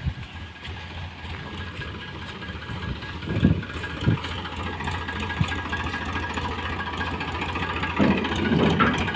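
Farm tractor's diesel engine idling with a steady low hum, with a few short knocks about three and a half, four and five and a half seconds in.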